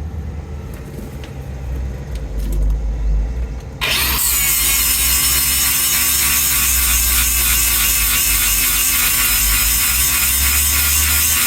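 A power grinder starts abruptly about four seconds in and runs steadily, grinding a steel cutter tooth from a Bandit Beast 4680 horizontal grinder to sharpen it. Before it starts there is a low rumble with light clicking.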